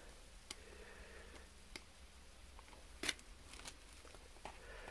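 Faint scattered clicks and taps of wax crayons being handled in a hard plastic 3D-printed mold, the loudest click about three seconds in.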